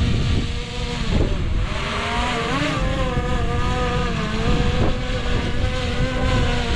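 DJI Air 2S quadcopter's propellers whining steadily as it hovers close overhead, the pitch wavering as it lowers toward the pilot for a hand catch, over a steady low rumble.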